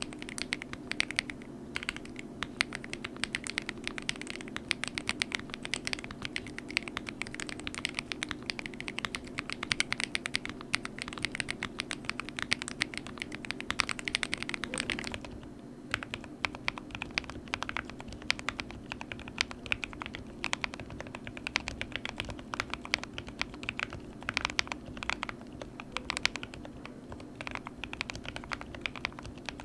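Thocky mechanical keyboard typed on quickly and steadily, a dense run of key clacks with a short pause about halfway through. A faint steady hum sits underneath.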